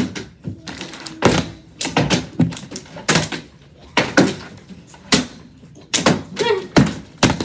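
Plastic water bottles being flipped and landing on a tabletop: a quick, irregular run of hollow knocks and clatters as the bottles hit the table and tip over.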